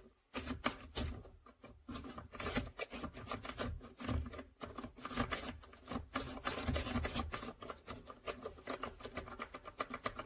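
A rake pick scraping and rattling in a Master Lock padlock's keyway under light tension: a quick, uneven run of small metallic clicks and rasps, with faint handling knocks.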